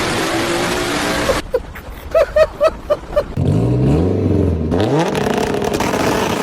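A turbocharged car's engine and exhaust running loud, then an abrupt cut to a quick series of about six short chirps. After that an engine revs up twice, rising in pitch, and settles into a loud steady run.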